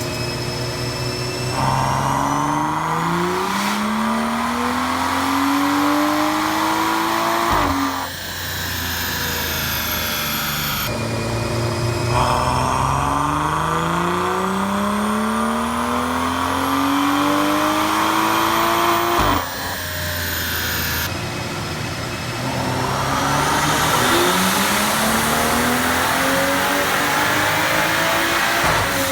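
BMW 335i's turbocharged N55 inline-six making three full-throttle pulls, each rising steadily in pitch through the revs for about six seconds and then cutting off sharply. A high whine climbs along with each pull.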